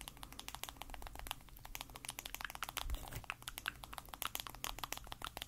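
Rapid, irregular light tapping and clicking on a bronzer compact, many small clicks a second: an ASMR tapping sound.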